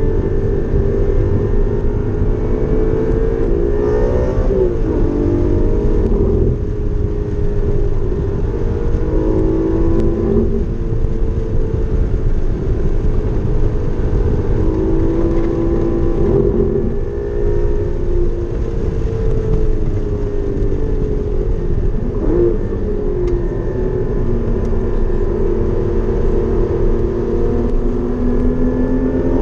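Porsche Cayman GT4's flat-six engine at racing speed, its pitch climbing under hard acceleration and then dropping sharply at braking and downshifts about every six seconds. Steady road and wind rumble runs underneath.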